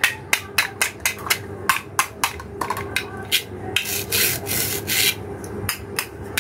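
Hard plastic toy fruit and vegetable pieces clicking and tapping against each other as they are handled, about three or four clicks a second. About four seconds in there is a longer rasp as the halves of a toy cabbage, held together by hook-and-loop tape, are pulled apart.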